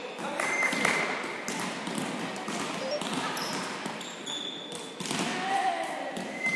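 Indoor volleyball rally: repeated hits of the ball and short squeaks of shoes on the hardwood court, echoing in a large sports hall, with voices.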